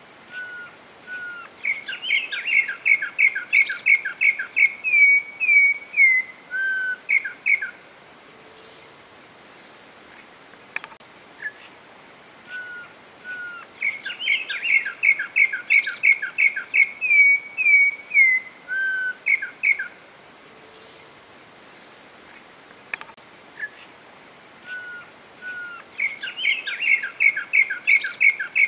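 Campo troupial (corrupião, Icterus jamacaii) singing: a phrase of rapid, clear whistled notes lasting about six seconds, repeated three times about twelve seconds apart. Faint high chirping goes on behind it.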